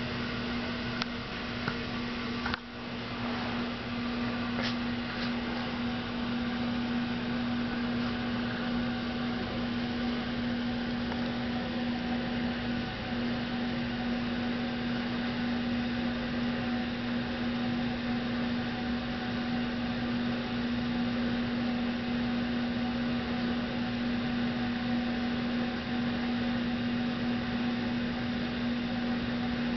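Steady indoor background hum with one strong low tone over an even hiss. It dips briefly about two and a half seconds in, with a few faint clicks in the first seconds.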